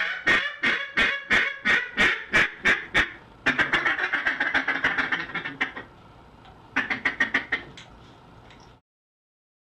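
Duck call blown by mouth: a run of about ten evenly spaced loud quacks, then a fast rolling chatter, then a short burst of quacks before the sound cuts off abruptly.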